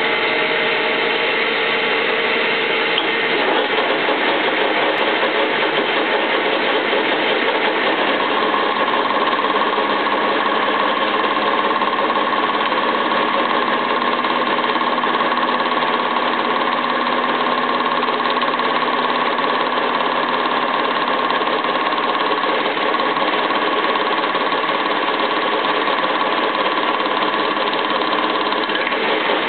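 Gustloff Werke metal lathe running with its tool cutting a spinning workpiece, chips streaming off the cut: steady machine and cutting noise, with a steady whine coming in about eight seconds in.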